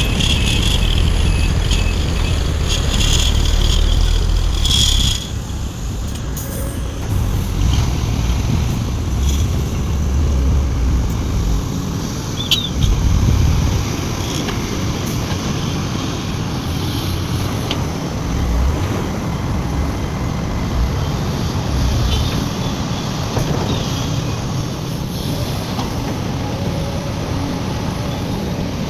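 Heavy diesel engines of a large excavator and a dump truck running under load, a steady low rumble. The rumble is heaviest for the first few seconds and eases about five seconds in, with a short high squeak about halfway through.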